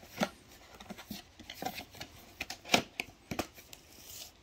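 Handling noise on a desk: scattered sharp clicks and light rustling, as of a cable and small objects being moved about. Three clicks stand out, one near the start and two close together about three seconds in.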